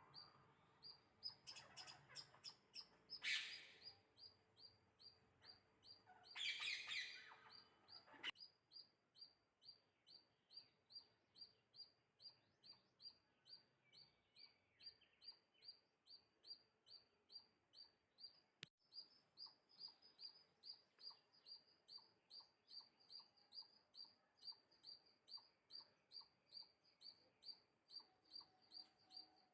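A small bird chirping over and over, short high chirps at a steady rate of about two to three a second. In the first eight seconds there are a few louder, harsher noisy bursts.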